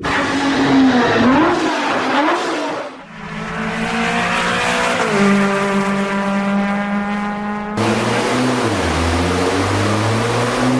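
A sports car engine in several cut-together takes. First it revs up and down for about three seconds. Then it holds a steady note, and after an abrupt cut it accelerates with a rising pitch.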